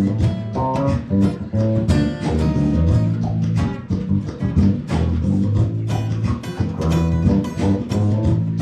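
Live music at a sound check: a guitar playing plucked notes over a steady bass line.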